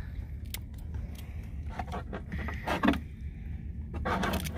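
Handling noise: scattered clicks and scrapes over a steady low rumble, with one louder knock about three seconds in.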